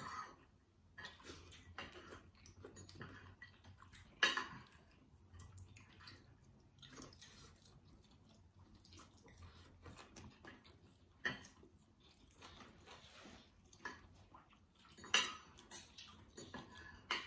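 Table eating sounds: a fork and spoon clinking and scraping on plates, with chewing between. Two sharper clinks stand out, about four seconds in and near the end.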